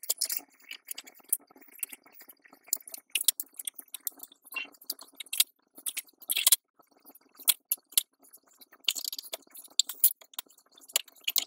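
Plastic LEGO bricks being handled and pressed together: irregular small clicks and rattles, with a few sharper snaps and a denser flurry of clicking near the end.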